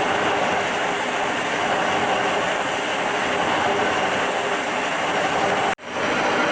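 Milling machine with a large cutter taking a shallow, wide cut in a steel block, a steady mechanical running and cutting noise with a constant hum. It cuts out for an instant near the end and then carries on.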